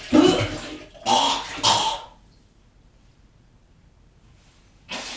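A person retching and vomiting in a small bathroom, heard with the room's short echo: three heaves in quick succession over the first two seconds, then quiet, then one short breathy burst near the end.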